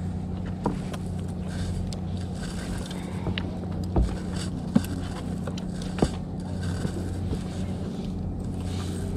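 A steady low engine drone, with several sharp knocks and clicks as a landed fish is handled in a metal-framed landing net on wooden dock boards; the loudest knock comes about four seconds in.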